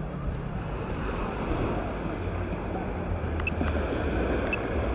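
Steady rushing of wind on the microphone at the seafront, with surf noise beneath it.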